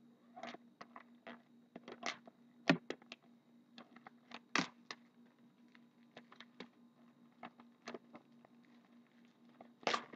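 Plastic shrink-wrap being torn and crinkled off a box of hockey cards: irregular crackles and rustles with a few sharper snaps.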